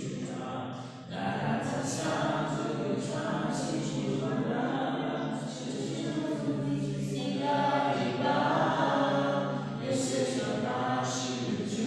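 A group of voices singing a song together without instruments, with held notes and a brief pause about a second in.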